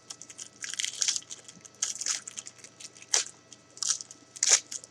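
Trading card pack wrapper crinkling as the pack is torn open and handled, in short irregular crackles about five or six times.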